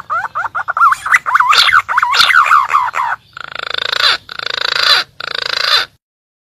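Green pigeon (punai) calls: a fast run of warbling whistled notes rising and falling in pitch, then three rough, rasping notes, stopping abruptly about six seconds in.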